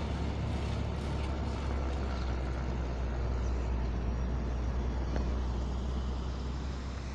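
Diesel oil tanker truck pulling away at low speed, its engine running with a steady low rumble.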